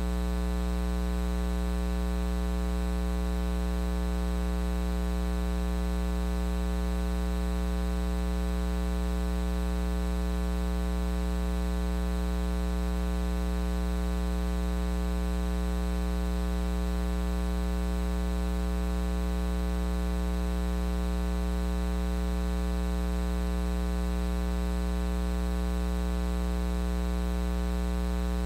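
Steady electrical mains hum with a buzzy stack of overtones, unchanging in pitch and level.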